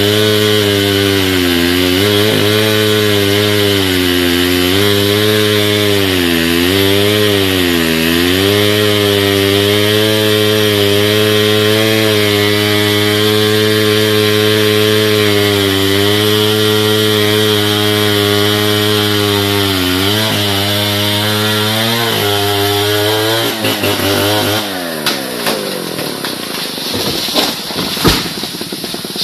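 STIHL chainsaw running at high revs in a cut, its pitch dipping and recovering several times as the chain loads up. About 24 seconds in the engine winds down, and a run of sharp cracks and knocks follows, the loudest near the end.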